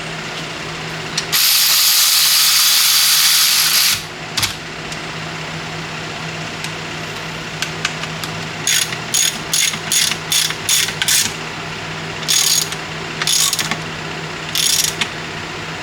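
Air ratchet running in the transmission case bolts in short bursts: one long run of about two and a half seconds near the start, then about ten quick bursts in the second half.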